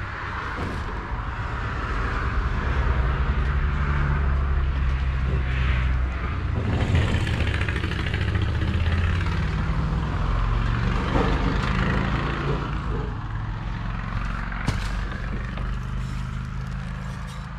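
Motor vehicle engine running with road noise, its low engine note shifting up and down in pitch as it goes; it builds over the first few seconds and eases off near the end.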